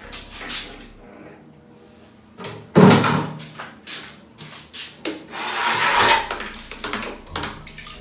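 Plastic buckets and a plastic dipper being handled, knocking and clattering, with one loud knock about three seconds in and a burst of rustling around five to six seconds in.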